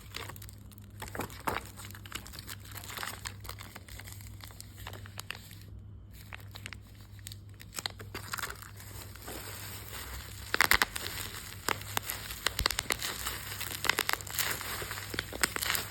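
Packaging being handled: irregular crinkling and crackling, sparse at first and busier and louder from about ten seconds in.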